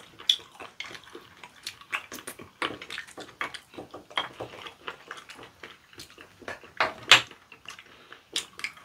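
Chopsticks and a spoon clicking and scraping against small ceramic sauce dishes and bowls during a meal, in irregular short clinks, with one louder clack about seven seconds in.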